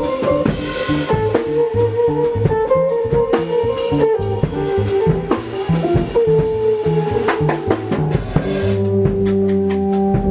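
Live jazz jam: fretless electric guitar playing a sliding melodic line over electric bass and drum kit, in a 9/8 groove. Near the end the bass and guitar settle onto long held notes.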